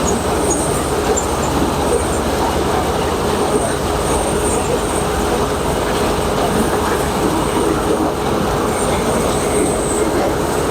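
Dasmesh combine harvester running as it harvests maize: a steady, loud mechanical din with a faint high whine that comes and goes on top.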